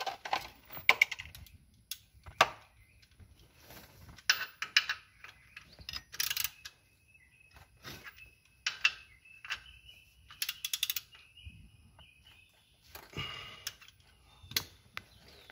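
Hand tools and socket-set pieces clinking and clicking against metal in scattered, irregular bursts while working on the underside of a tractor during an oil change.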